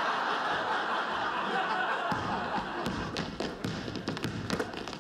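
Studio audience laughing, loud at first and slowly dying away. In the second half, a basketball is dribbled on a wooden gym floor: several irregular thuds.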